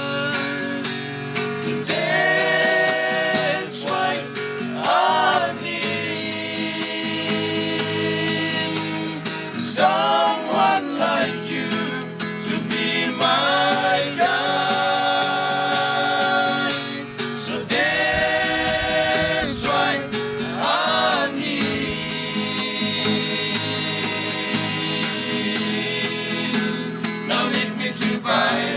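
Background song with acoustic guitar and singing.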